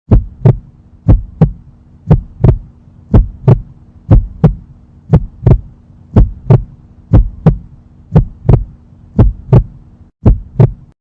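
Heartbeat sound effect: paired lub-dub thumps, about one beat a second, eleven beats in all, over a faint steady hum.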